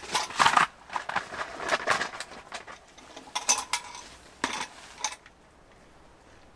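Footsteps crunching on gravel mixed with the clinking and rattling of a metal camping lantern being handled, then a few separate knocks as it is set down on a plastic stool; the sounds stop about five seconds in.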